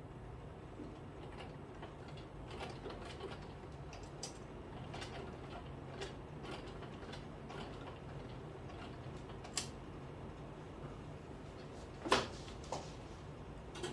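Irregular light clicks and taps from handling fabric, pins and a zip, with a few sharper clicks near the end, over a steady low hum.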